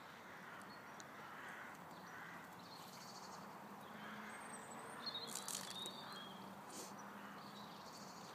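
Faint outdoor ambience, with a few distant bird calls about five seconds in.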